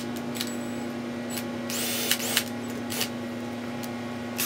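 Cordless drill boring a 13/64-inch pilot hole in the steel tube of a tractor's rollover bar, run in short trigger bursts with the motor whining up to speed, over a steady low hum.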